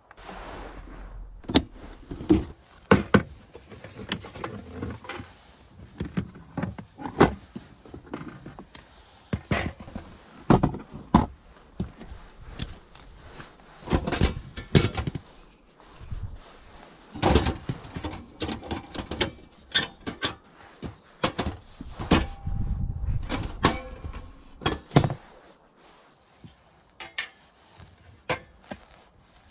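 Irregular knocks, clunks and rustling of gear being handled in a car, with a door-like thunk among them; the knocks thin out near the end.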